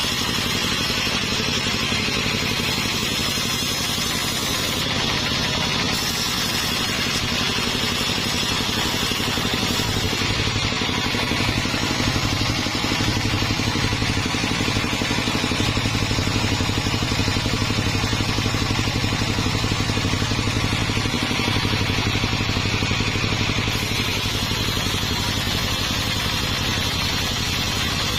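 Sawmill machinery running steadily with a constant motor drone, somewhat louder and heavier through the middle.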